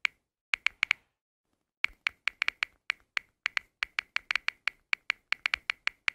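Smartphone on-screen keyboard clicks, one short sharp tick per key tapped, in quick uneven runs while a search phrase is typed, with a pause of about a second near the start.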